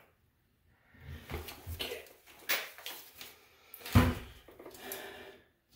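Rustling and knocking from someone moving about and handling things on a tiled bathroom floor, with one sharp thump about four seconds in.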